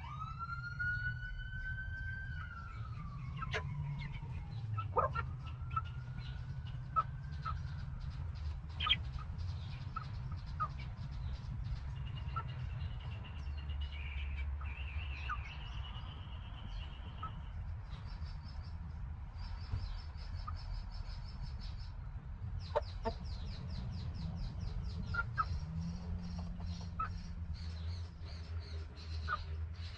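Backyard hens and half-grown chicks clucking and calling as they peck at feed. A long drawn-out call rises and then falls in the first few seconds, and scattered pecking taps run through the rest. Wild birds chirp in the background, with a rapid high chatter from about two-thirds of the way in.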